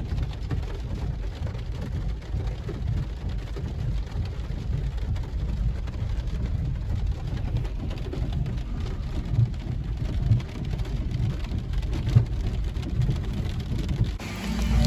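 Car cabin road noise while driving: a steady low rumble from tyres and engine with small irregular knocks, stepping up in level near the end.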